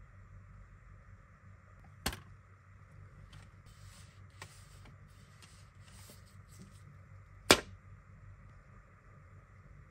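Hands handling a 4K Blu-ray steelbook case: a sharp click about two seconds in, the paper digital-code insert rustling in the middle, then a louder sharp click near the end as a fingertip goes to the disc in its plastic tray.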